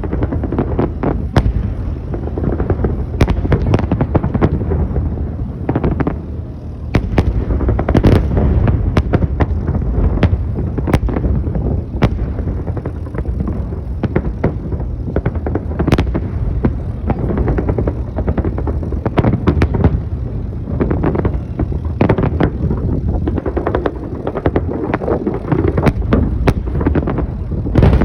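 Fireworks salute: many sharp bangs of bursting shells at irregular intervals, some close together, over a steady low rumble.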